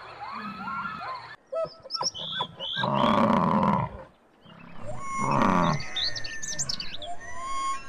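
Lions attacking a Cape buffalo: two loud, harsh animal calls about two seconds apart, each lasting about a second, with high chirping calls between them.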